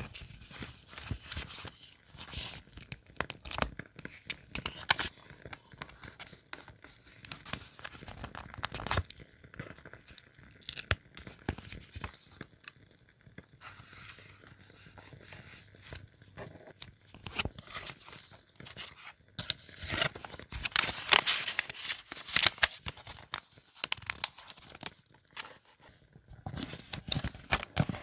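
Paper being handled and torn, with irregular rustling, crinkling and small sharp clicks and taps; the rustling grows louder for a few seconds near the end.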